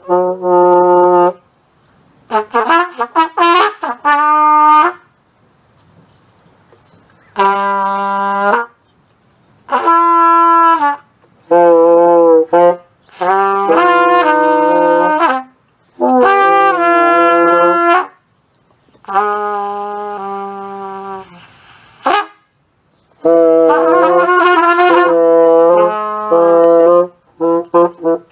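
A cornet and a bassoon playing held notes together in about nine short phrases with brief gaps between them, the cornet the louder and the bassoon sounding a low note underneath.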